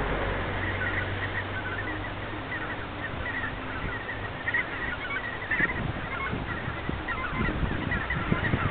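A large flock of greater white-fronted geese, with some barnacle geese among them, calling continuously: a dense chorus of many short, overlapping high yelping calls. A low steady hum sits under the calls for the first three seconds or so.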